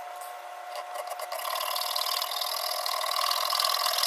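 Round hand file rasping back and forth in quick strokes, cutting a groove into the plastic top rail of a Zoraki HP-01 air pistol. It starts faint and becomes steady and louder about a second and a half in.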